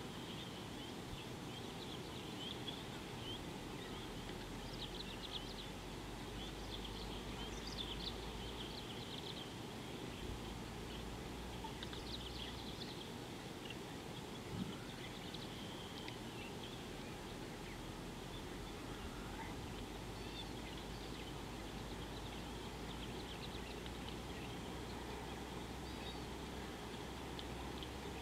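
Outdoor ambience: faint, scattered chirps, likely distant birds or insects, over a steady low hiss and hum.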